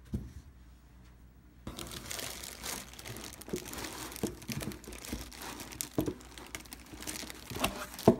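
Clear plastic wrapping crinkling around a speaker base as hands handle it, starting about a second and a half in and going on with many small crackles. A sharp knock comes near the end.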